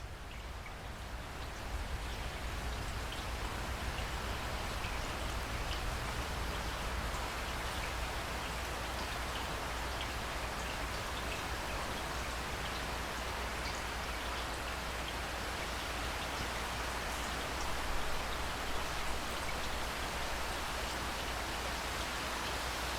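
Steady rainfall: a dense, even hiss of rain with separate drops ticking above it. It fades in over the first second or two, then holds level.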